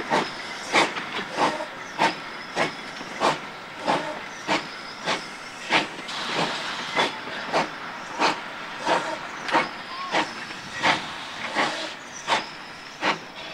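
Narrow-gauge 4-6-0 steam locomotive #168 working steadily, its exhaust chuffing at about one and a half beats a second over a constant steam hiss. The beats grow a little fainter near the end as the engine draws away.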